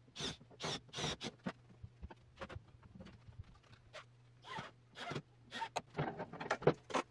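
Cordless drill driving a screw into a plywood sled fence in a few short spurts, then clicks, rattles and scraping as the drill is set down and clamps on the fence are handled.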